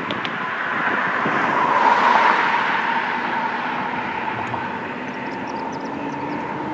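A vehicle going by close, a rushing noise that swells to its loudest about two seconds in, then settles into a steady rumble with a faint steady whine.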